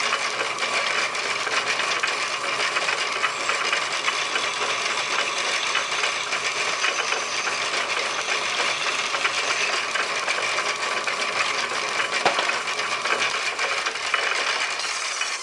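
Metal-turning lathe running steadily with a gear whine and a light chatter, spinning a brass piston on a mandrel. It begins to wind down at the very end.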